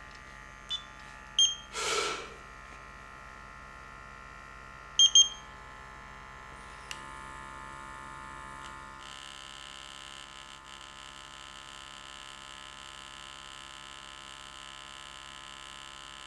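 Bedfont NObreath FeNO monitor's internal pump humming steadily. A single beep about a second and a half in is followed by a sharp breath in. A double beep about five seconds in is the signal to start the long exhalation into the monitor, and the hum changes tone about seven and again about nine seconds in.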